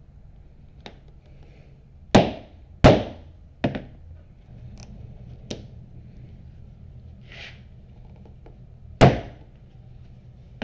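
Mallet blows driving a 3/16-inch round hole punch through layers of bison and English bridle leather. There are three hard thunks in quick succession about two seconds in, a few lighter taps, and one more hard blow near the end.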